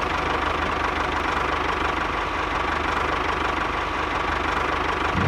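An engine idling steadily with a fast, even chugging pulse.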